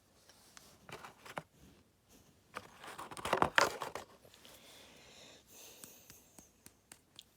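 Hands working on an RC car shock absorber as its old fluid is emptied: light clicks and taps of small parts, with a louder stretch of scraping and crinkling about three to four seconds in.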